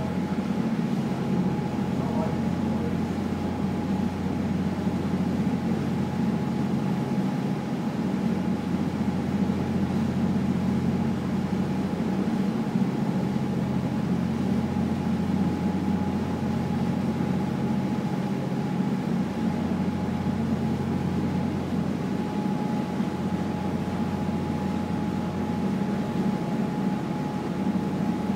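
Passenger ferry's engines running steadily under way, a constant low drone with a faint steady whine above it.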